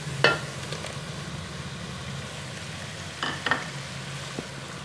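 Onions frying in hot oil in an aluminium pan, sizzling steadily as ground tomato goes in, with a low steady hum underneath. A wooden spatula knocks against the pan once near the start and twice more about three seconds in.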